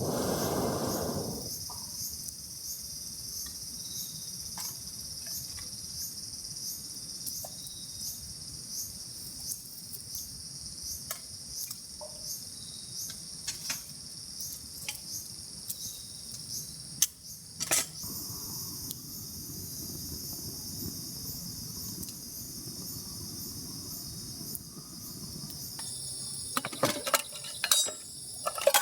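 Insects chirping in a steady, rhythmic summer chorus, with scattered clicks and several louder knocks and clicks close together near the end.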